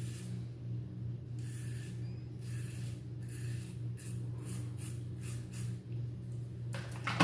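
Short scraping strokes of a Razor Rock Hawk V2 razor cutting through thick shaving lather and stubble, repeating about once or twice a second over a steady low hum, with a louder noise near the end.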